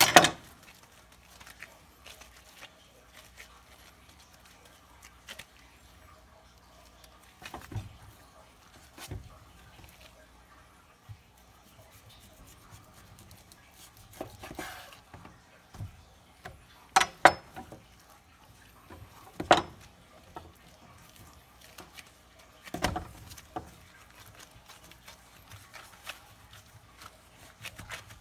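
Scattered knocks and taps of a kitchen knife and meat on a wooden cutting board as a piece of dry-aged rib roast is trimmed, with quiet stretches between. There is one sharp knock at the very start, and the loudest come in a cluster around two-thirds of the way through.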